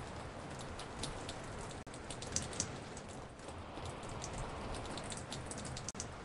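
Recorded rain dripping on a porch: many separate drops fall at random against a steady rain hiss, layered and spread around in space. The sound cuts out for an instant twice, about two seconds in and near the end.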